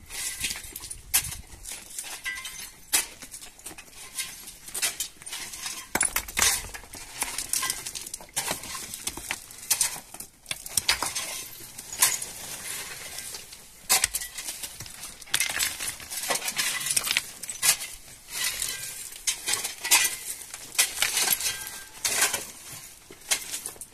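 Irregular clinks, knocks and scrapes of stones, gravel and household things being picked up and moved about in a rubble-strewn rock shelter.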